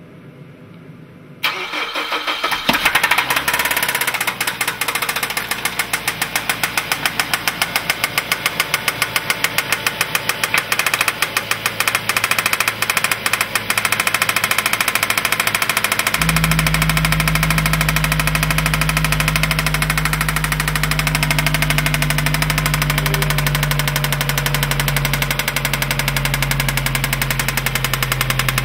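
2003 Mazda 6's 2.3-litre four-cylinder engine starting about a second and a half in, then running with a rapid, steady knocking. A deeper steady hum joins about halfway through.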